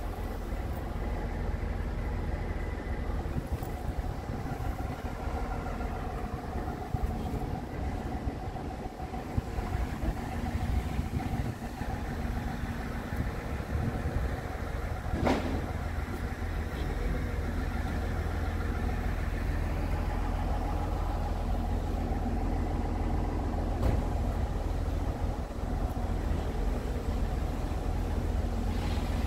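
Steady low mechanical rumble of a vehicle, with wind on the microphone, and one sharp knock about halfway through.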